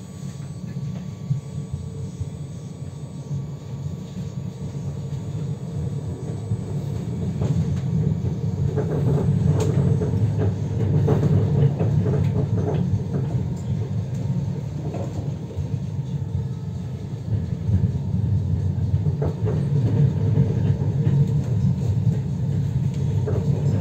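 Tram running along the rails, heard from inside the car: a steady low rumble of wheels and running gear with scattered light clicks. It grows louder over the first ten seconds or so as the tram gathers speed, then holds at speed with small swells.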